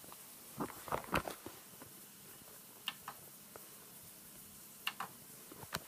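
Faint plastic clicks of DVD remote buttons being pressed: a quick cluster about a second in, then a few single clicks spaced out after it.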